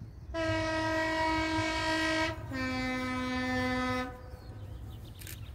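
Diesel locomotive's two-tone horn sounding a long high note, then a long lower note, each about two seconds.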